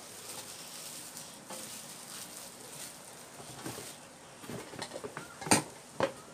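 Plastic blender cups and parts being lifted out of a cardboard box and set down on a table: light handling noise and small knocks, with two sharper knocks near the end.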